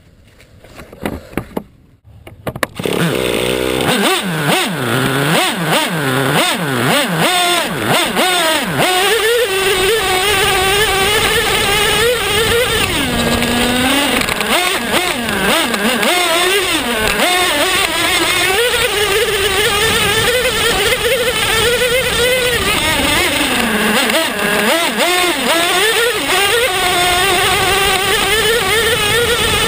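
Small two-stroke nitro engine of a Traxxas T-Maxx RC truck running at high revs as the truck drives, its whine rising and falling with the throttle. It is preceded by a few sharp knocks and comes in loud about three seconds in.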